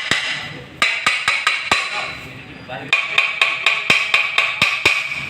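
A hammer tapping metal in quick runs of light blows, about four a second, each with a short metallic ring, knocking a tight-fitting part into place in a motorcycle engine.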